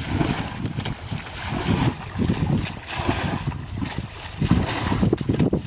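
Muddy water splashing and sloshing as a plastic bucket is scooped through a shallow channel and its water thrown out, in repeated irregular splashes every second or two.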